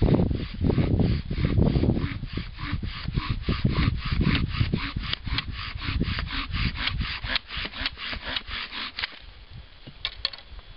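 Cedar bow drill at work: the spindle spins in the fireboard as the bow is drawn back and forth, a rasping rub with each pass at about four strokes a second, drilling to build friction heat for an ember. The strokes stop about nine seconds in, and low rumbling sounds under them for the first two seconds.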